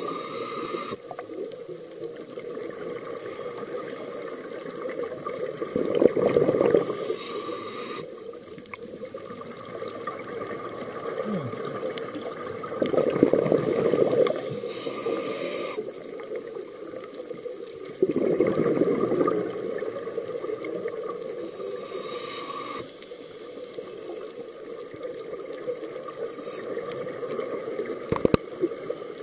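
Scuba diver breathing through a regulator underwater, about four slow breaths: a high, short hiss on each inhale and a longer bubbling rush on each exhale. A faint steady tone runs underneath.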